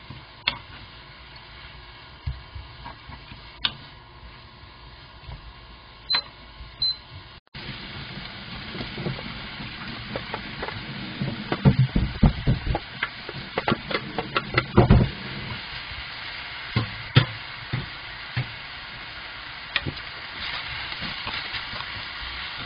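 Pork, fish cake and carrot strips sizzling in a frying pan as they are stirred with a wooden spatula, with occasional clicks of the spatula on the pan. In the middle, a run of knocks and clatter as sliced onion is scraped from a stainless steel tray into the pan, then steady sizzling with stirring.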